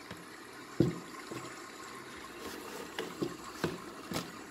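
A few light, sharp taps and clicks from hands handling test gear on a workbench, the loudest about a second in, over a steady faint hiss.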